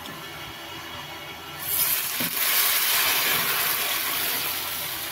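A cup of water poured into a hot pan of fried spice paste and oil. About a second and a half in it sets off a sudden loud hissing sizzle that slowly dies down.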